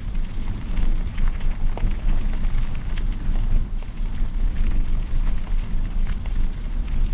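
Wind buffeting the microphone of a camera on a moving bicycle: a heavy, unsteady low rumble, with scattered light clicks and rattles over it.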